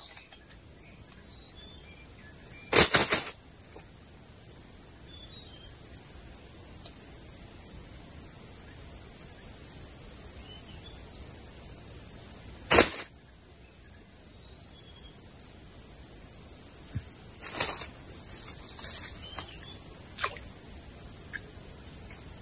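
Steady high-pitched drone of insects, crickets or similar, with a few short sharp clicks and knocks scattered through it, the loudest about thirteen seconds in.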